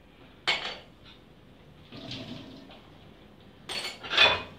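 Hand dishwashing at a kitchen sink: a sponge working round a plastic bowl. There is a sharp clatter about half a second in and a louder rush of noise near the end.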